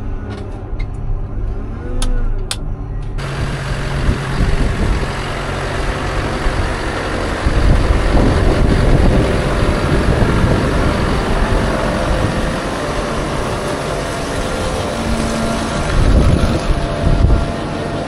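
For about three seconds, a wheel loader's engine heard from inside the cab. Then a tractor and a feed mixer wagon running while feed is unloaded into a bunk: a steady rushing noise, with low gusts of wind on the microphone.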